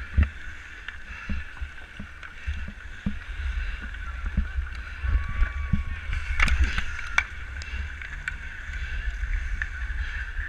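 Hockey skate blades scraping and carving on outdoor ice, with a run of sharp clacks of a stick on the puck about six to seven seconds in. A low rumble on the microphone runs underneath.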